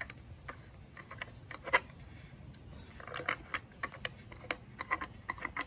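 Light, irregular metallic clicks and clinks of a hand tool turning screws out of a wooden chair frame, coming thicker in the second half.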